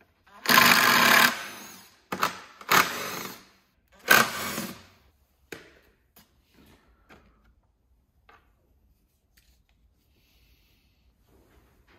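Cordless impact driver with a 10 mm socket rattling out the bolts of a Honda mower's recoil starter housing, in three short bursts within the first five seconds. Light clicks of the loosened parts being handled follow.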